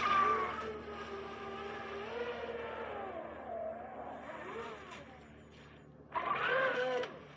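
Twin brushless motors of an electric RC racing catamaran running at high throttle with a whine whose pitch rises and falls and slowly fades, then a second short burst of full throttle about six seconds in.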